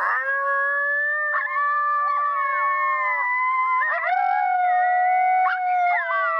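Recorded coyote group howl, a 'serenade', played loud through a predator caller: several howls at once, gliding up and holding long at different pitches, overlapping and restarting every second or two. It is a howling call meant to draw a vocal reply from coyotes.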